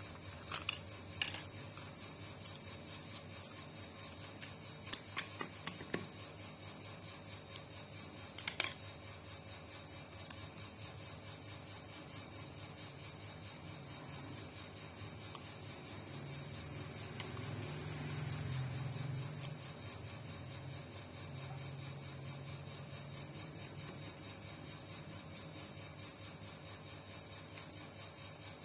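Quiet bench work on a sewing machine: a few light clicks and taps of parts being handled, over a low steady hum that grows a little louder for a few seconds past the middle.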